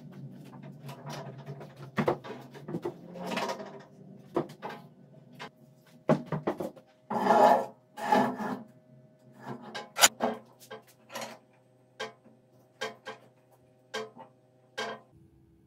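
A long steel bar clunking and scraping against the steel vise and bed of a horizontal metal-cutting band saw as it is slid into place and clamped. The sound is a series of knocks and clicks with a couple of longer scrapes, one about seven seconds in.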